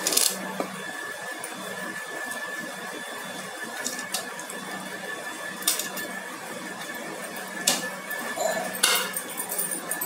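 A few short clinks and knocks of a plate and steel spatula against a steel pressure cooker as spices are tipped in, over a steady hum.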